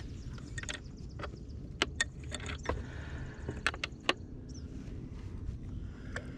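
Scattered light clicks and taps from hands handling fishing line, jig and gear in a boat, about ten in the first four seconds, over a low steady rumble.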